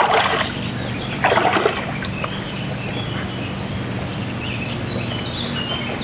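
Water splashing twice, about a second apart, as a person wades in a river. A bird chirps several times in the second half.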